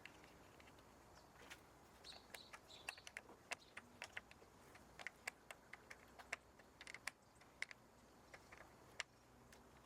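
Near silence broken by faint, sharp, irregular clicks and ticks, a few each second.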